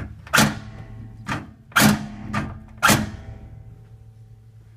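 Aluminum truck tool box struck or knocked about six times, three of the knocks loud, each leaving a metallic ring that fades over a second or so.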